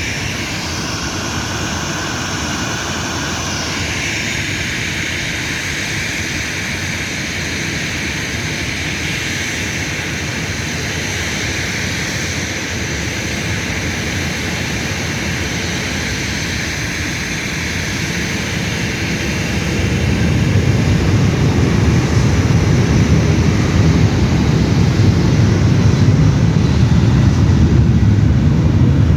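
Jet engines of a Boeing 737-800, CFM56 turbofans, running with a steady high whine for the first few seconds, then a much louder deep rumble building about two-thirds of the way through as the airliner powers up for takeoff.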